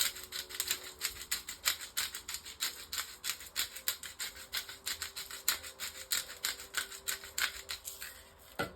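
Black pepper being shaken out of a seasoning container over raw chicken: a fast, even run of dry rattling taps that stops shortly before the end.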